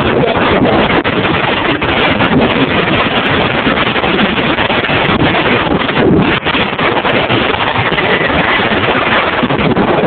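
Loud, steady wind noise rushing over the microphone while moving down through deep snow.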